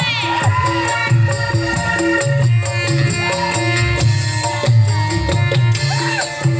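Live Reog gamelan accompaniment: drums beat a repeating pattern under steady ringing gong-chime notes, with a wavering, pitch-bending melody line over the top and a rattling percussion layer.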